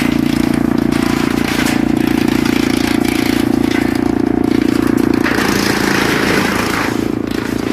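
Wood chipper machine running steadily with a loud, even hum, turning rougher and noisier for nearly two seconds just past the middle.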